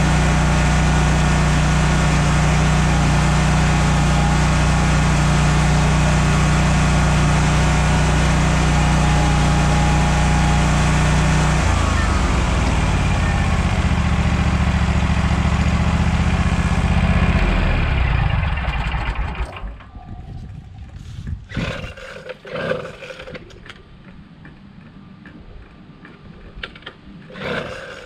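John Deere 648R zero-turn mower's engine running at a steady speed, its pitch shifting about twelve seconds in, then dying away a few seconds later. Quieter irregular rushes of noise follow.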